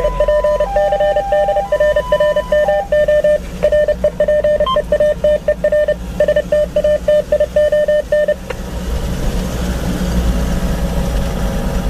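Ambulance's electronic siren sounding in rapid beeping pulses, about four a second, over a two-tone hi-lo note that switches pitch about once a second for the first few seconds. The siren stops about eight seconds in, leaving engine and road rumble heard from inside the cab.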